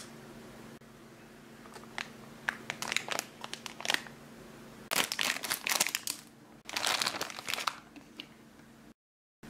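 Plastic packaging of a candy kit crinkling as it is handled: scattered crackles that build into two dense stretches of crinkling in the middle, over a faint steady hum, then cutting off to dead silence just before the end.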